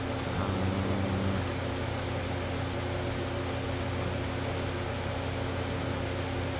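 Steady machine hum with an even hiss, like a fan or air-conditioning unit running, with a slightly higher tone joining in for about a second near the start.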